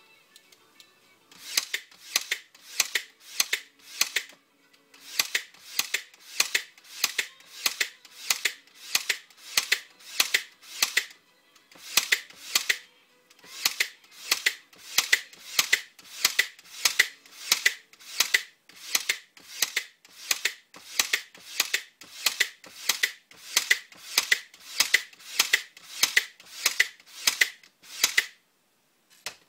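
Ryobi Airstrike 18-gauge cordless brad nailer firing brads into a block of wood in sequential mode: a long run of sharp shots, about two a second, with a few short pauses between bursts.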